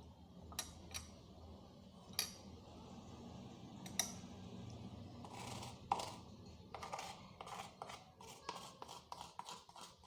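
A utensil clicking and scraping in a glass as a paste is mixed: a few scattered clicks at first, then quick clicks, several a second, over the last few seconds.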